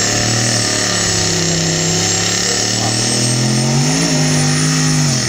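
A car engine running under light revs, its pitch climbing about three and a half seconds in, holding, then dropping near the end, with a thin high whine over it.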